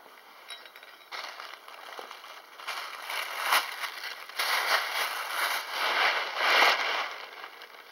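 Paper gift bag and wrapping rustling and crinkling as they are handled, in uneven bursts that are loudest in the second half.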